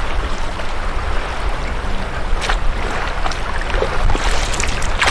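Lake water splashing and lapping around a small inflatable boat as its plastic oars dip and pull, with a splash about halfway and a few more near the end, over a steady low wind rumble on the microphone.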